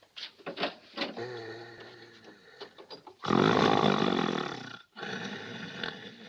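A man snoring loudly. First comes a low, buzzing snore; then, about three seconds in, a louder, harsher rasping snore lasting about a second and a half, followed by a fainter breath.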